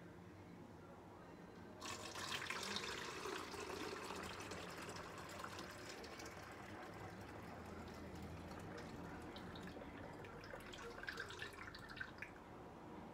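Simple syrup poured from a plastic gallon jug through a plastic funnel into a quart bottle: a steady liquid stream filling the bottle, starting about two seconds in. A few light clicks come near the end.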